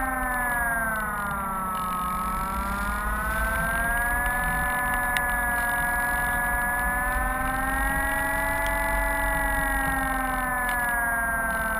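Electric motor and propeller of a Sonic 185 RC powered glider, recorded on board, whining steadily. Its pitch dips about two seconds in, climbs again, and falls slightly near the end, over a low rush of wind.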